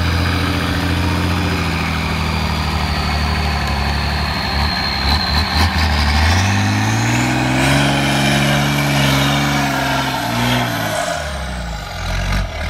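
Truck-trial competition truck's diesel engine running at low revs, then revving up about six seconds in and holding there before easing off near the end. A thin high whine falls and rises along with it.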